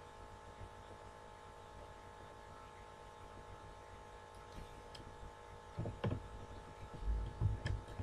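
Steady electrical hum with a faint fixed whine, the background noise of a home voice recording. In the last two seconds come a few soft low thumps and a couple of clicks.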